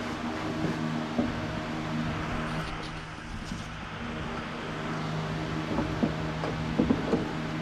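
A steady low machine hum with a light hiss. Near the end come a few faint metal taps as a pick touches the tractor's worn front axle spindle.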